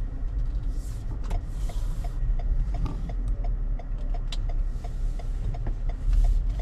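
Car cabin with a steady low engine and road rumble as the car creeps along. From about two seconds in, the turn-signal indicator ticks evenly, about three ticks a second.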